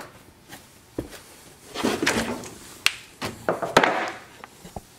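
Handling noise: scattered sharp knocks and clicks, with two short stretches of rustling and scraping about two and four seconds in.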